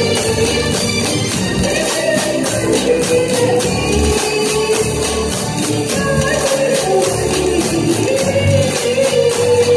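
Live band music: a long-held melody line over a steady, evenly repeating high shaking beat.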